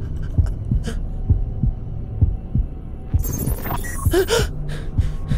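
Heartbeat sound effect thudding about twice a second over a low, steady drone, marking a moment of shock. About three seconds in, a high rushing noise swells in on top.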